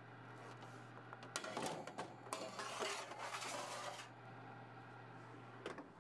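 Metal baking sheet sliding and scraping onto a wire oven rack, faint and clattery, over a low steady hum. Near the end, a click as the oven door shuts.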